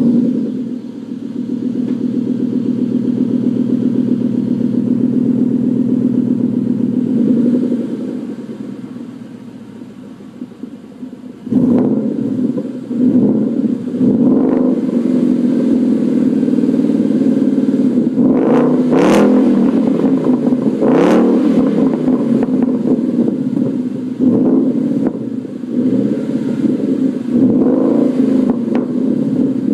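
Ford Mustang GT's 5.0 L V8 through a Ford Racing Competition axle-back exhaust, heard right at the tailpipe. It idles high just after starting, then settles quieter. About eleven seconds in it turns louder and rougher, and the owner gives several quick throttle blips; the sharpest two come close together in the second half.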